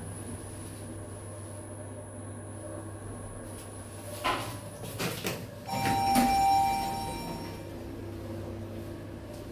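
Otis Gen2 lift arriving at a floor: a few clunks about four to five seconds in as the car stops, then a ringing arrival chime that fades out as the doors slide open. A steady hum of the car runs underneath.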